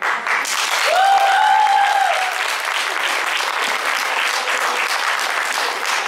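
Audience clapping and cheering as the team takes the stage, with one voice holding a long high cheer about a second in.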